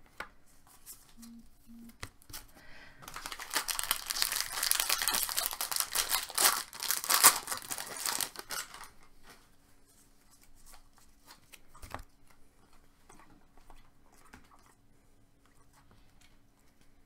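Trading-card pack wrapper being torn open and crinkled, a dense crackling tear lasting about five seconds that starts about three seconds in, followed by a few faint ticks.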